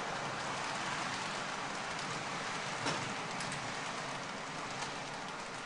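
H0m-scale model trains of the Rhaetian Railway rolling along the track: a steady hiss of wheels on rails, with a single sharp click about three seconds in.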